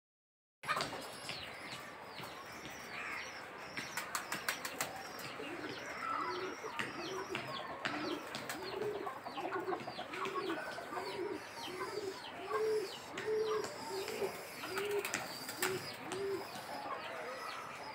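Domestic pigeons cooing, a run of about a dozen evenly spaced rising-and-falling notes through the middle, over steady high, quick chirping of small birds. A few sharp clicks come near the start.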